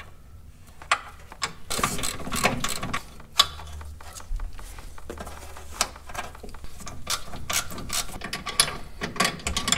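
Hand ratchet wrench clicking in repeated clusters as it turns the 13 mm bolt holding the brake line bracket to the car's frame.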